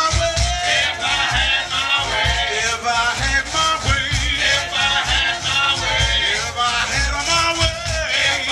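Live band music heard from the audience: a large stage band playing an upbeat number with a steady beat and a rattling percussion part.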